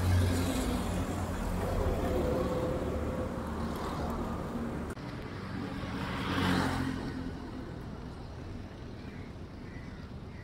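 Street traffic: motor vehicles running close by with a steady engine hum. One vehicle passes loudly about six and a half seconds in, swelling and fading, and the traffic is quieter after it.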